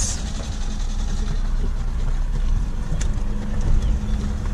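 Ford EcoSport driving on the road: steady low engine and road rumble.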